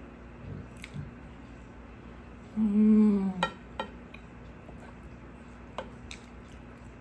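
A woman's closed-mouth "mmm" of enjoyment while chewing, lasting under a second about halfway through. A few light clicks of a spoon against the plate follow as she scoops up more coconut-milk-soaked lolo bun.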